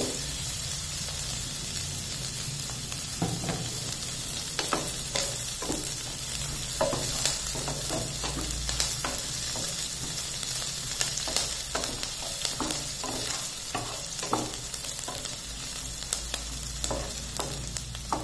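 Chopped onions, green chillies and peanuts frying in a little oil in a nonstick pan, a steady sizzle, while a wooden spatula stirs and scrapes the pan in frequent short strokes: the tempering (tadka) stage of bread upma.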